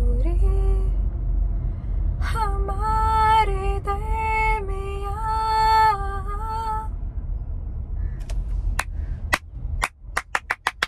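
A woman singing a slow song line unaccompanied, holding long wavering notes that fade out about seven seconds in. Then comes a run of hand claps that quickens near the end.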